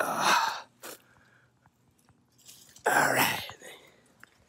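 A man's two loud, short bursts of breath close to the microphone, one at the start and one about three seconds in, each about half a second long.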